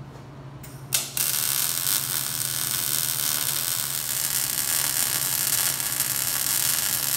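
MIG welder laying a bead along the steel seams of an axle C gusset. The arc strikes briefly, then catches about a second in and runs as a steady hiss, over a constant low electrical hum.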